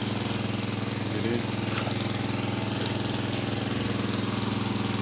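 Small engine running steadily at an even speed.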